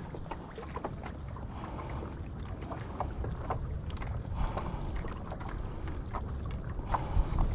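Wind noise on the microphone with water lapping and small splashes and drips around a landing net held in the water beside a kayak.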